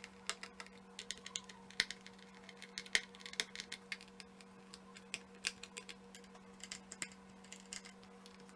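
A small screwdriver working the screws out of a laptop's hard drive cover: a run of irregular light clicks and ticks of metal on metal and plastic, over a faint steady hum.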